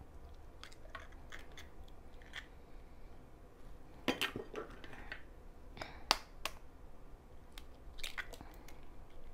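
An egg being tapped open with a fork: scattered light clicks and shell crunches, the loudest about four and six seconds in.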